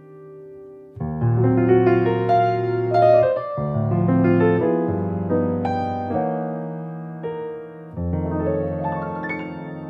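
Background piano music: a melody over held low chords, with new chords coming in about a second in and again near the end.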